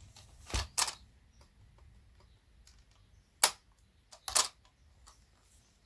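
Sharp clicks and knocks of parts and tools being handled while a stereo unit is taken apart. There are about five scattered clicks, two close together near the start and two or three more past the middle, with faint ticks between.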